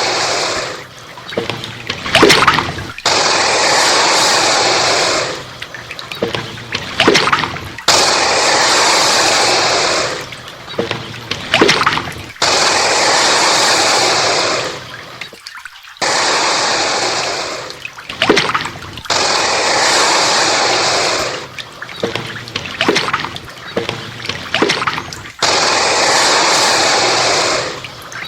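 Alligator hissing: a string of long hisses of about two seconds each, with shorter sharp breathy sounds between them.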